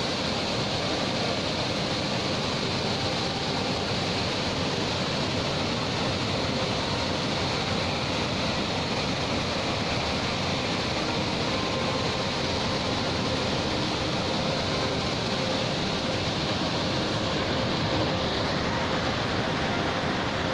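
Water rushing steadily from open dam gates, falling in several heavy jets onto the concrete below.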